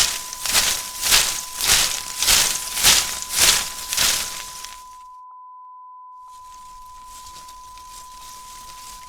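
Ōnusa purification wand swished back and forth: its paper streamers and hemp fibres rustle in even sweeps, about two a second, dying away about four and a half seconds in. After a brief silence, a faint soft rustle of the paper continues. A steady high beep tone runs over it as a sample watermark.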